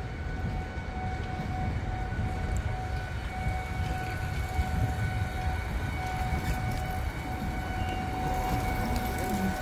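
A steady high-pitched whine that holds one pitch, over a continuous low rumble.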